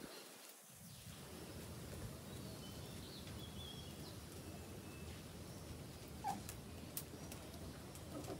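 Faint outdoor ambience with a few short, high bird chirps and a few soft clicks or knocks, the loudest about six seconds in.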